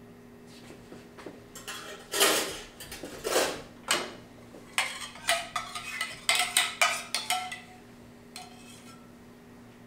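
Metal spatulas clanking and scraping on a steel teppanyaki griddle: a run of sharp clinks and scrapes, several ringing briefly, starting about two seconds in and stopping near the end.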